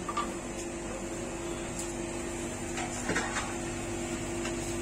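Steady hum of a rolled-ice-cream cold-plate freezer, with a few short scrapes and taps of a metal spatula on the frozen plate around the middle.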